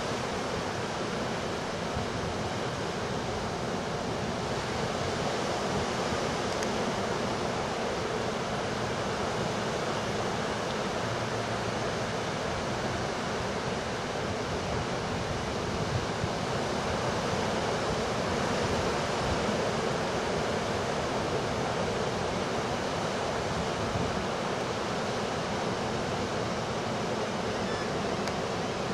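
Steady rush of ocean surf, waves breaking and washing in without let-up.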